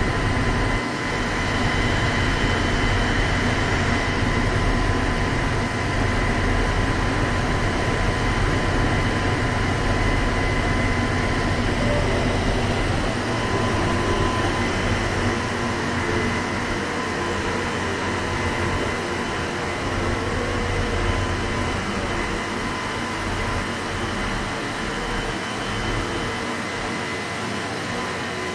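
Steady hum and rumble of trains standing at a station platform, with idling onboard equipment and ventilation, and a thin steady whine running through it.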